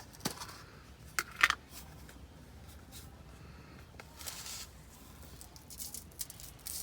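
Faint clicks and short rustling shakes of salt and pepper being put onto diced potatoes in a foil packet, with a sharper click about a second and a half in and short shakes past the middle and near the end.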